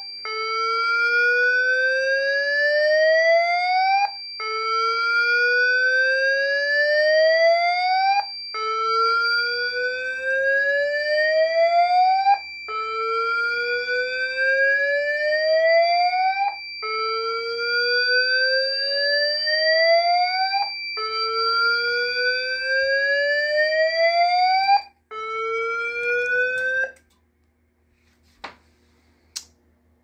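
Siemens MXLV voice evacuation panel sounding the slow whoop evacuation tone through a Pyrotronics speaker strobe: a rising whoop that repeats about every four seconds, with a steady high tone alongside. The steady tone stops about 25 seconds in, and the whoop cuts off about 27 seconds in.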